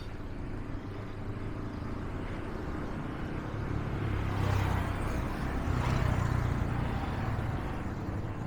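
Street traffic: a vehicle passes, swelling to its loudest about four to six seconds in, over a steady low rumble.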